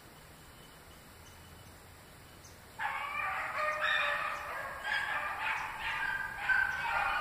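Faint outdoor background, then about three seconds in young rabbit hounds suddenly break into baying, several wavering voices overlapping and carrying on: the pack giving tongue as it runs a rabbit's trail.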